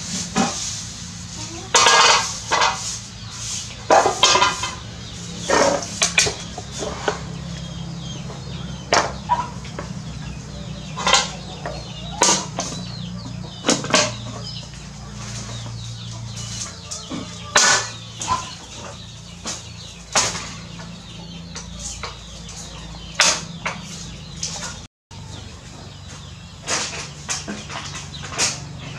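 Chickens clucking repeatedly in short separate calls, over a steady low hum.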